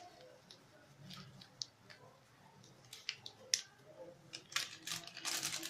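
A spoon scraping and knocking against the pan while chicken is stirred with masala powder: scattered clicks and scrapes, with a longer run of scraping near the end.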